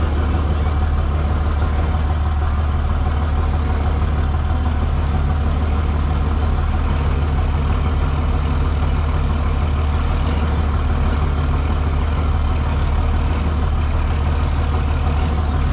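Truck engine running steadily, a constant low hum with no change in speed.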